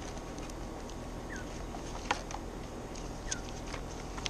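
Light handling noise: scattered clicks and rustles of a cardboard tackle box and a paper insert card being sorted through and pulled out. Two short falling chirps come through, about a second in and again past three seconds.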